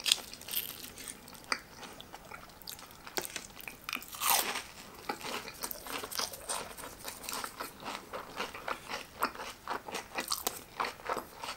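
Crunching and chewing of a piece of crispy breaded pork cutlet (katsu) dipped in sauce: many short crunches, with a stronger bite about four seconds in.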